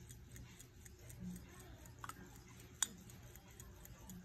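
Ingersoll Radiolite pocket watch ticking faintly with a quick, even beat. One sharp click about three seconds in.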